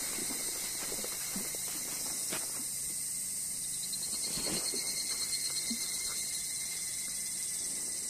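Footsteps on a dirt and leaf-litter forest path, a few soft steps about a second apart, over a steady high-pitched drone of insects.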